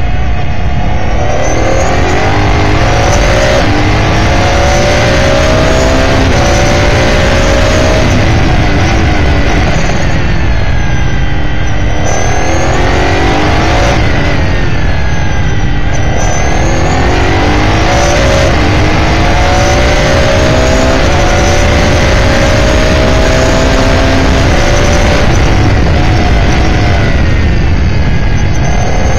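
Onboard sound of an S5000 open-wheel race car's 5.0-litre Ford Coyote-based V8 at racing speed: repeatedly rising in pitch as it accelerates out of corners, then falling away as the driver brakes and downshifts for the next turn. Heavy wind and road rumble runs underneath.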